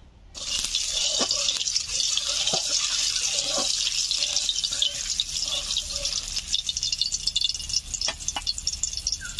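Mustard oil sizzling and spattering in a hot kadai: a steady hiss with scattered pops that starts suddenly just after the beginning.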